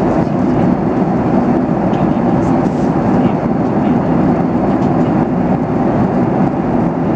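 Steady cabin noise of a Boeing 737 in cruise, heard from a window seat: an even rushing of airflow and engine noise with no bumps or rattles.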